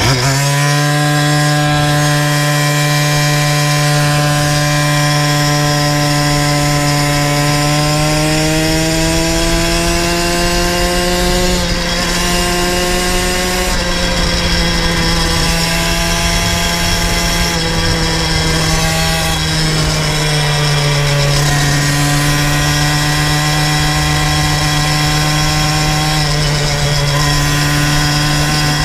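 Two-stroke motorized bicycle engine running steadily at half throttle while riding. Its buzzing pitch climbs slowly, dips briefly twice, then holds steady.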